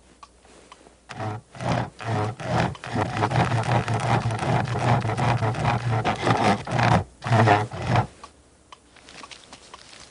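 Wordless cartoon-character grumbling: a low, rough voice muttering and groaning in uneven spurts for about seven seconds, then stopping abruptly. Afterwards there are only faint light taps.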